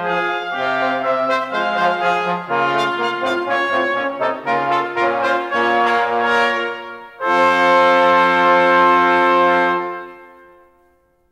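Brass quintet playing several moving parts together, then closing on a loud held final chord about seven seconds in. The chord is released near ten seconds and dies away.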